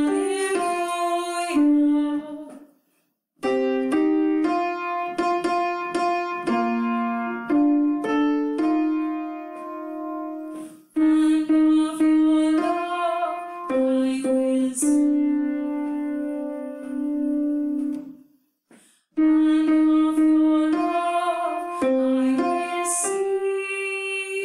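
The alto line of an SSA choral piece sung by a woman's voice with piano, in held phrases broken by short pauses about three seconds in and again after about eighteen seconds.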